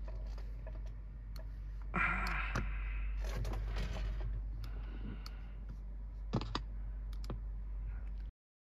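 Scattered, irregular clicks and taps of a laptop keyboard and trackpad in use, with a steady low hum underneath.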